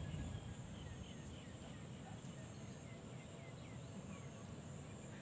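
Rural outdoor ambience: a steady high-pitched insect drone, with a bird giving short, repeated descending chirps and a low rumble underneath.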